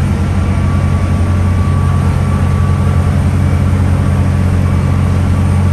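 Steady low drone of a large engine, with a faint steady whine above it.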